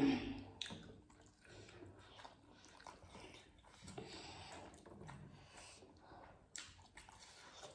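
Eating sounds: chewing and soft, wet squishing as steamed chicken momos are torn apart by hand and bitten, with scattered small clicks.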